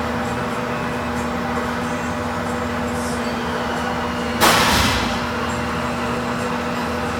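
Colchester 15-inch lathe running steadily with a constant hum while a parting tool cuts the spinning work under a flow of cutting oil. About four and a half seconds in, a short, loud burst of noise that dies away within half a second.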